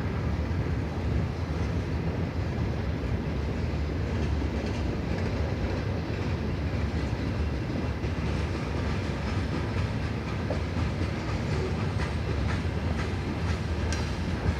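CN freight train rolling past: a steady low rumble of steel wheels on the rails, with a few clicks near the end.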